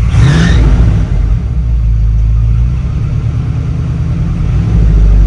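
1981 Dodge Ram's carbureted V8 on an Edelbrock 600 CFM carburetor, blipped briefly right at the start and then settling back to a rough, uneven idle. The rough idle comes from one side of the carburetor running really lean, which the owner puts down to a clogged idle jet from bad-gas crud.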